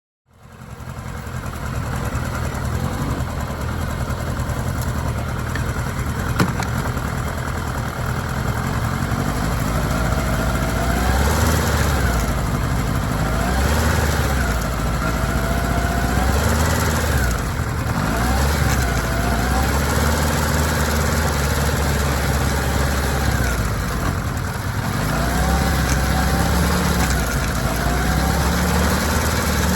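Kawasaki ZR-7S's air-cooled inline-four engine running, its pitch rising and falling several times from about ten seconds in, with one sharp click about six seconds in. The bike is being run to trace an abnormal noise from its drive chain.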